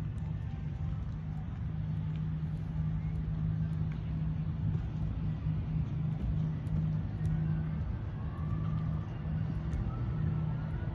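A steady low mechanical hum with a rumble beneath it, like a running engine, holding even throughout.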